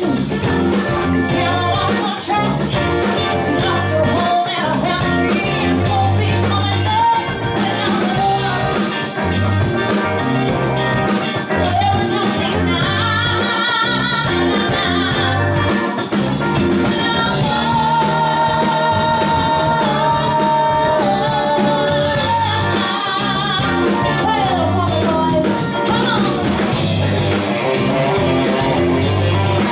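Live rock band playing: a woman sings lead over electric guitars, bass guitar, keyboards and drums with a steady beat, holding long wavering notes in the middle stretch.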